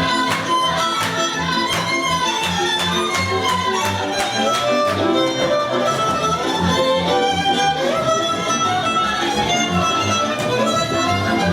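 Instrumental string music: a violin melody moving over a steady, evenly pulsing low accompaniment.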